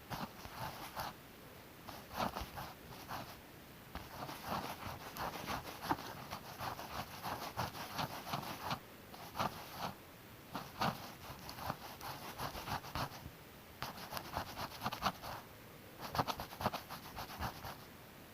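Hand work on body filler on a car panel: bursts of short scratching, rubbing strokes, such as sanding or scraping putty, with brief pauses between the bursts.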